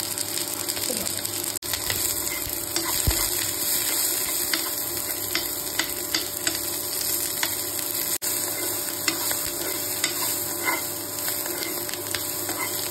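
Sliced cabbage, onion and green capsicum sizzling as they fry in oil in a nonstick pan, with a steel spoon scraping and clicking against the pan as it stirs them.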